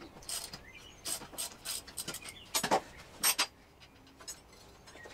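Hand tools clicking and rasping against the metal of a mower's idler pulley assembly in several short, irregular strokes. The loudest come about two and a half and three and a quarter seconds in. The pulley is being worked loose after being fitted without its belt.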